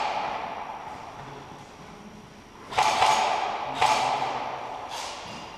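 Three airsoft gun shots, about a second apart, each a sharp crack followed by a long echo that slowly fades, as in a large hard-walled building.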